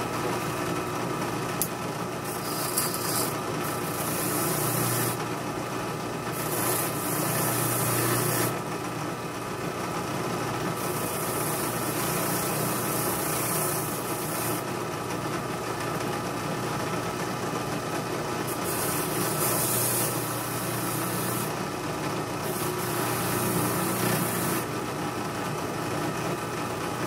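Powered wire-brush disc running steadily, with a hissing scrub each time a rusty knife part is pressed against it, about six times over the stretch.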